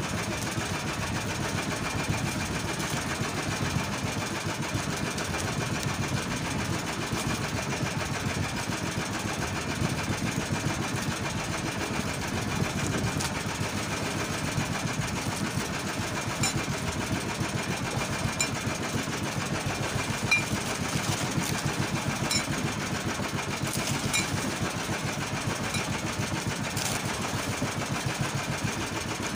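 The fishing boat's small deck-mounted engine running steadily.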